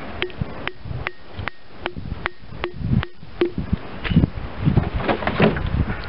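A mallet tapping a spile into a maple tree's taphole: about nine evenly spaced taps, each with a short ring. After the taps stop, irregular handling knocks and rustling follow.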